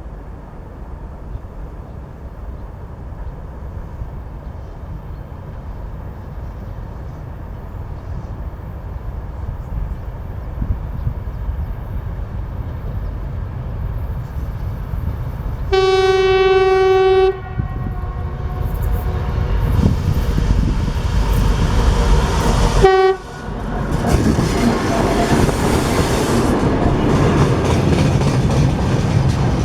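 A diesel locomotive approaching, its rumble growing louder. About halfway through it sounds its horn for about a second and a half, gives a brief second blast some seconds later, then runs past loudly with its train.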